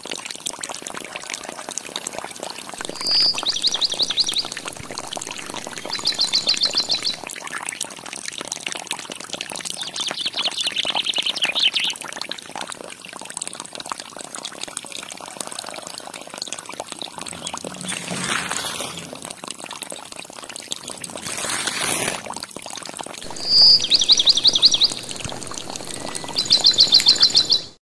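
A thin stream of water pours steadily from the outlet pipe of a miniature battery-powered water pump, splashing into a small cup and then into a pond. Short high bird trills come several times over the pouring.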